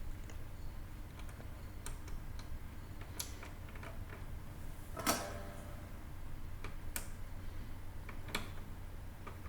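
Light clicks and taps of small tools and a component being handled on a circuit board, with one louder click about five seconds in, over a steady low hum.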